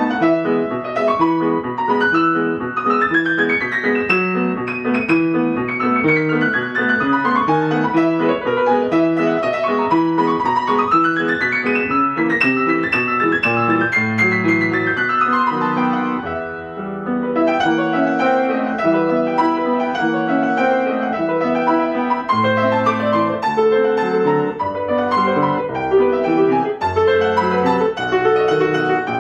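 Solo piano playing a classical piece with fast running notes. About twelve seconds in, a long run falls from the treble. It eases off briefly, then the melody and accompaniment continue.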